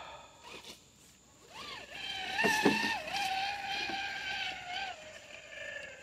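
Traxxas TRX-4 RC crawler's electric motor and drivetrain whining. The whine rises in pitch as the truck speeds up about a second and a half in, holds fairly steady for about three seconds, then eases off. A couple of sharp knocks come about two and a half seconds in.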